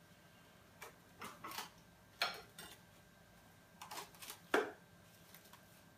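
Cling film and its plastic dispenser box being handled: a scattering of short crinkles and light clicks as the film is pulled out and cut, the sharpest a little after two seconds and about four and a half seconds in.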